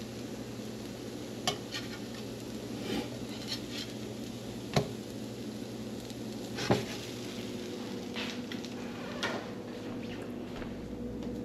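Small breakfast patties sizzling in a frying pan, with a metal slotted spatula scraping and clicking against the pan as they are turned and pressed. A handful of sharp clacks stand out, the loudest about five and seven seconds in.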